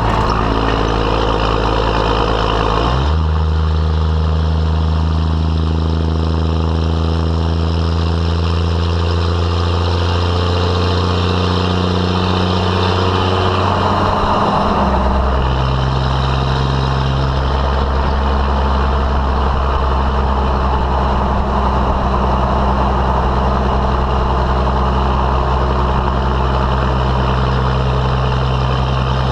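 12-valve Cummins 5.9-litre inline-six turbo diesel exhaust through a 4-inch straight pipe, heard right at the tailpipe while the truck pulls a heavy load. The pitch steps up about three seconds in and climbs slowly. Near the middle it drops at a smooth throttle-modulated upshift made with the torque converter locked, then the engine holds steady.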